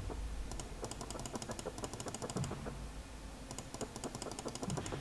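Computer keyboard keys tapped in quick runs of several clicks a second, with short pauses between the runs.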